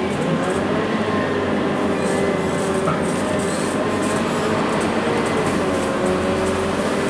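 Scania K230UB city bus heard from inside the cabin while driving: its diesel engine runs under load, its pitch dipping and climbing again twice, near the start and near the end, over steady road and tyre noise.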